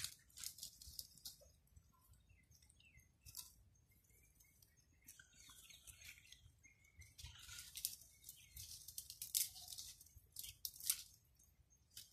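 Irregular bursts of rustling and crackling from dry brush and twigs being pulled and broken off bushes.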